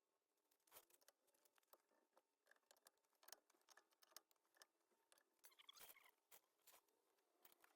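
Near silence, with faint scattered clicks and taps.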